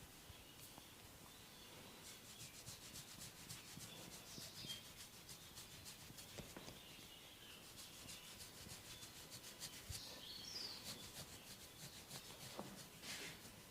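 Faint rubbing and scratching of a head massage on hair and scalp, with many light, quick ticks.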